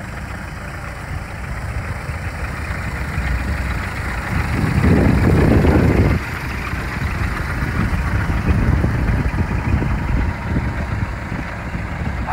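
Scania R480 tractor unit's six-cylinder diesel idling with a steady low rumble, louder for about a second and a half near the middle.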